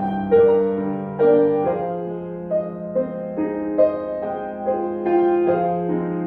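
Solo piano playing a slow melody, one note after another, over held low notes.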